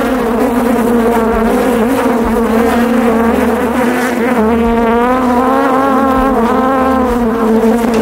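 A cloud of honeybees from the opened hive buzzing loudly close around the microphone: a steady, dense hum that wavers in pitch as individual bees fly near.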